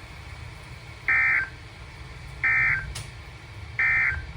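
Emergency Alert System end-of-message signal: three short, identical bursts of SAME digital data tones, about a second and a third apart, marking the end of the alert broadcast.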